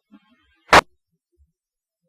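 A single short click of radio static, like a squelch break, on a fire-dispatch radio channel between transmissions. It comes once, about three quarters of a second in.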